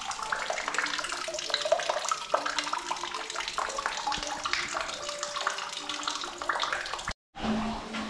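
Spring water welling up and running over rocks in a limestone cave, a steady gurgling with small splashes, which breaks off suddenly about seven seconds in.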